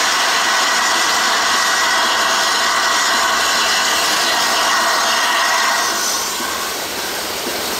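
Steam locomotive venting steam: a loud, steady hiss that eases off about six seconds in.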